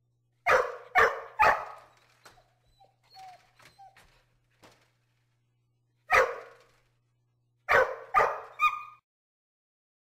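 Border collie barking: three sharp barks in quick succession, then a few soft whimpering yips, a single bark, and three more quick barks, the last ending in a short whine.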